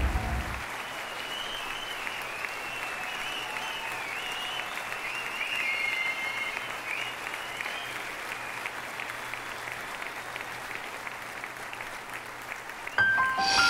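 Audience applauding with steady clapping. Near the end, music with bell-like notes starts again.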